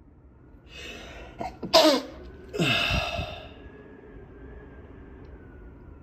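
A person with a head cold sneezing into a cloth handkerchief: a breath in, a sharp stifled sneeze just before two seconds in, then a longer voiced burst that falls in pitch.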